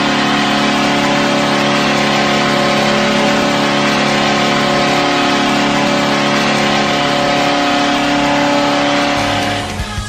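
Nashville Predators' goal horn sounding one long, steady blast that fades out near the end.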